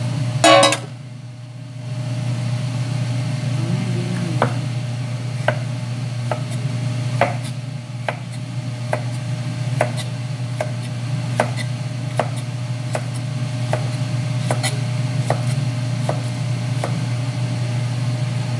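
A cleaver chopping peeled young bamboo shoots on a cutting board, a sharp knock about every second, over a steady low hum. A brief loud clatter comes about half a second in.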